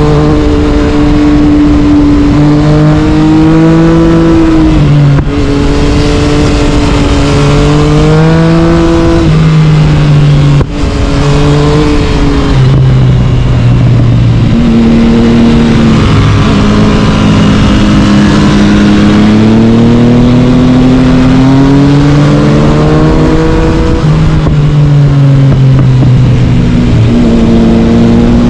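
Yamaha MT-09 three-cylinder engine through an Akrapovic carbon-fibre exhaust, pulling hard under way with the pitch repeatedly rising and dropping as the rider accelerates and eases off. Short breaks about five seconds and ten and a half seconds in mark gear changes.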